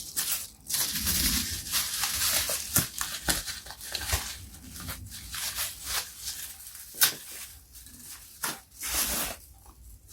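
Speaker packaging being handled and unwrapped: rustling, crinkling and tearing of wrapping material, with scattered clicks and taps. It is busiest in the first half and grows sparser toward the end.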